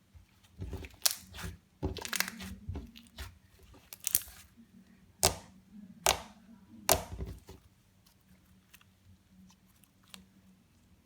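Clear slime being squished, giving an irregular series of sharp pops and crackles that die away after about seven seconds.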